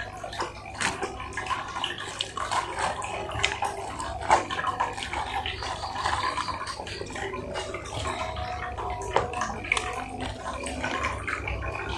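Close-up chewing of fried chicken, a dense run of small wet clicks and smacks of the mouth, with the paper box rustling as it is handled and a fresh bite taken near the end.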